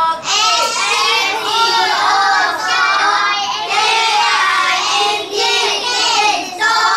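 Young children's voices singing in near-continuous phrases, with brief breaks.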